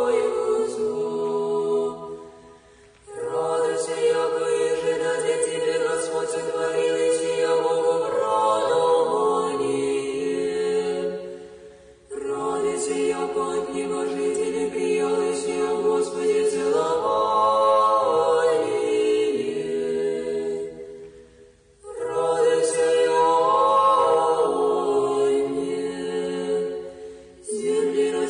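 Orthodox church choir singing an a cappella chant in long, sustained chords. The chant comes in several phrases separated by short breaths.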